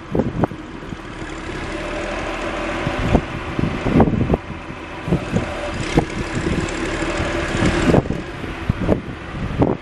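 John Deere 710 backhoe's diesel engine running, growing steadily louder over several seconds, with a handful of sharp clunks and knocks from the machine.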